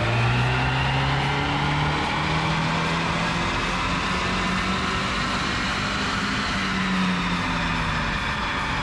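Turbocharged Ecotec four-cylinder in a Pontiac Solstice running on a chassis dyno: its pitch climbs steadily for about seven seconds under load, then drops as it comes off the throttle near the end.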